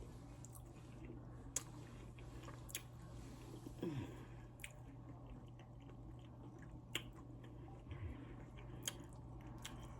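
A person chewing and biting fried chicken close to the microphone, with a few sharp crisp clicks scattered through it and a short low falling hum about four seconds in.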